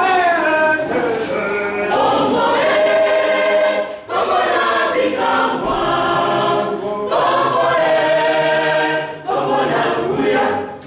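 A choir singing in several voices, with short breaks between phrases about four seconds in and again just after nine seconds.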